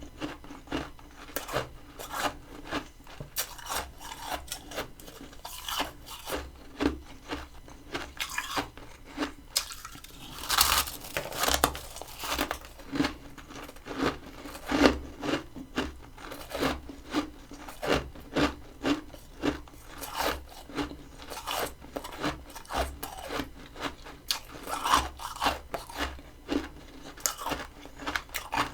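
Close-miked chewing of crunchy freezer frost (humidifier frost from a mini freezer): a steady run of crisp crunches, about two a second, with one longer, louder crunch about ten seconds in.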